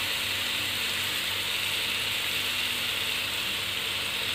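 Chicken satay skewers sizzling steadily on a hot nonstick grill pan, an even hiss that does not let up.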